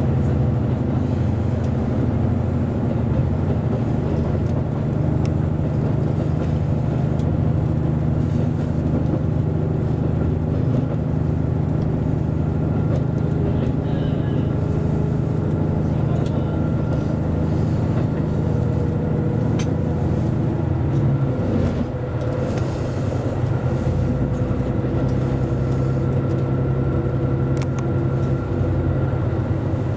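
Series 85 diesel railcar's Cummins diesel engines running steadily under power as the train travels, heard from the cab with wheel and rail noise. The engine note changes about 21 seconds in.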